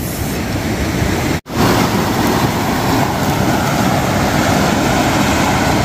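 Rushing whitewater of a small rocky mountain stream running full with rainy-season water, a loud, steady noise that cuts out for a split second about a second and a half in.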